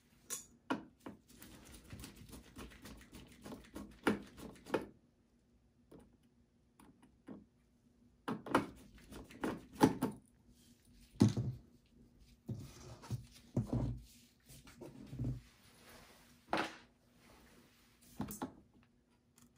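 Handling noise of an M.2 SSD being unscrewed and lifted off a desktop PC motherboard: scattered light clicks and knocks of a screwdriver and gloved hands against the board and sheet-metal case. It includes rustling early on and a few heavier thumps past the middle.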